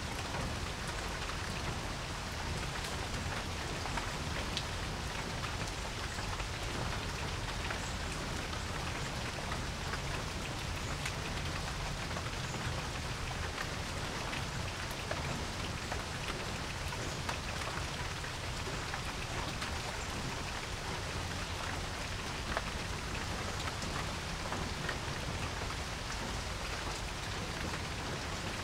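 Steady rain falling on a porch, an even hiss with many individual drops ticking and pattering throughout.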